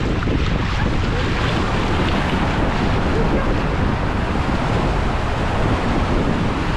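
Wind buffeting the camera microphone, over the steady wash of surf breaking on the beach.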